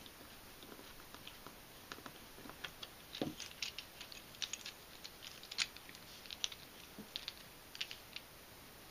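Irregular light clicks and taps of 3D-printed plastic twisty-puzzle pieces and a small screwdriver being handled while the puzzle is put together, with a louder knock about three seconds in.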